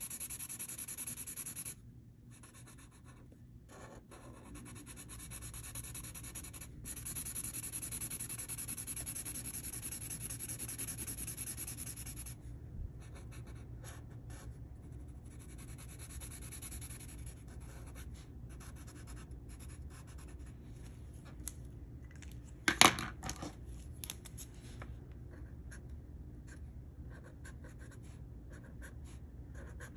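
Felt-tip marker scratching across paper in long back-and-forth coloring strokes, which turn shorter and more broken after about twelve seconds. A single sharp knock about two-thirds of the way through is the loudest sound.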